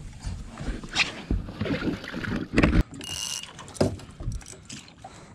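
Irregular knocks and bumps of handling on a fibreglass boat deck, the loudest near the middle. A brief high whine comes about three seconds in.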